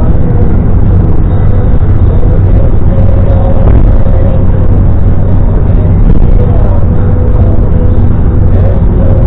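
Car driving at a steady pace: constant loud engine and road rumble with no change.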